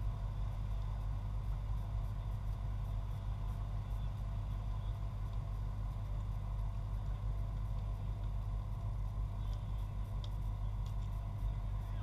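Steady low rumble with a faint constant hum running under it, the kind of unbroken background noise that machinery, distant traffic or wind on a small camera's microphone makes. A few faint short sounds come through near the end.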